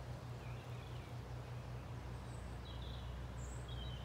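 Outdoor ambience with a few short bird chirps over a steady low rumble.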